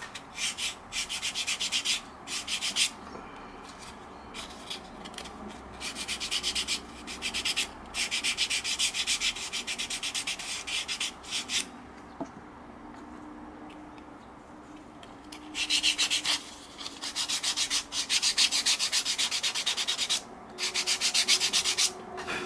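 400-grit sandpaper rubbed by hand along the edge of a leather strip in quick back-and-forth strokes, in spells of a few seconds with a pause in the middle. This light sanding roughens the edge so the edge paint can grip.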